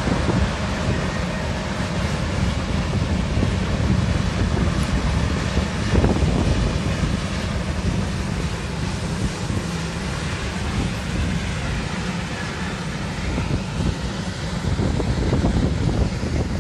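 Wind buffeting the microphone, loud and low, over the rumble of a long container freight train's wagons rolling past on the track.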